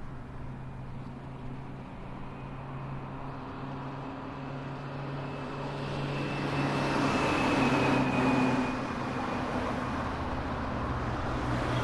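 Steady vehicle or traffic noise with a low hum, swelling louder about six seconds in.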